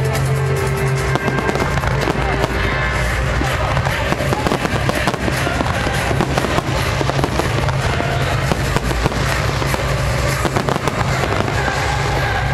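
A fireworks display going off continuously, a dense run of bangs and crackles, with music playing underneath.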